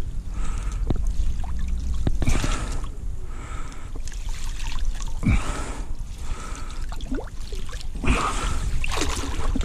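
River water sloshing and dripping around a landing net held in the shallows as a small pike is let go, in a string of short separate splashes a second or so apart. A steady low wind rumble sits on the microphone.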